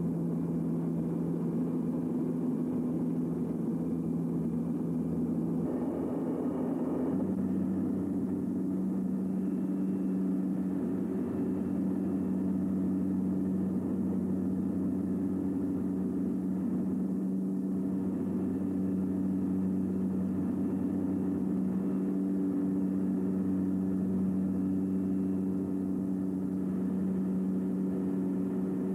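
Cabin drone of a Beech 200 King Air's twin PT6A turboprops in flight: a steady low hum of propeller and engine tones. About six seconds in, the main tone steps up in pitch and then holds steady.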